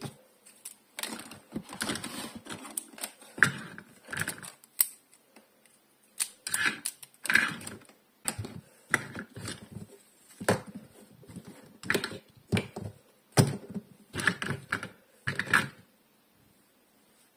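Plastic toy doctor-set pieces being handled, giving irregular clicks and clacks of plastic on plastic and on the tabletop. The clicking stops near the end.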